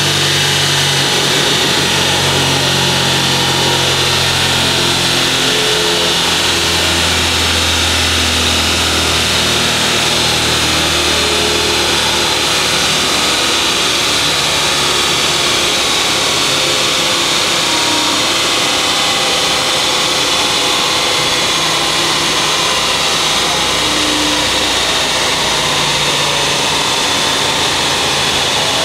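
Car engine running under load on a chassis dynamometer's rollers, a loud, steady mix of engine and roller noise through a dyno run.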